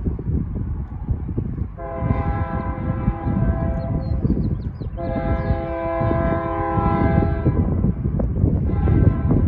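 Approaching BNSF freight locomotive's multi-tone air horn sounding two long blasts and then a short one, the start of the long-long-short-long grade-crossing signal. A steady low noise runs underneath.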